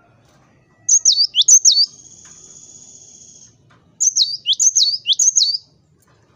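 Cinereous tit (gelatik batu) singing: two loud bursts of sharp, quickly repeated high whistled notes, the first about a second in and the second about four seconds in, with a fainter steady buzzing trill between them.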